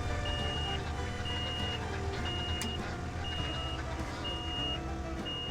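Skid steer backup alarm beeping steadily, one high beep about every second, over the machine's engine running.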